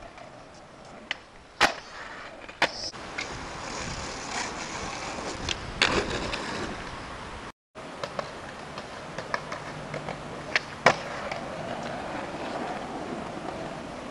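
Skateboard wheels rolling on pavement with a steady rumble, broken by several sharp clacks of the board hitting the ground. There is a brief silent gap a little past the middle.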